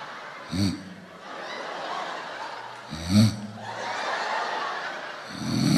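Dog snoring: long breathy in-breaths, each broken by a short, loud, low snort, three times about two and a half seconds apart, the last snort the loudest.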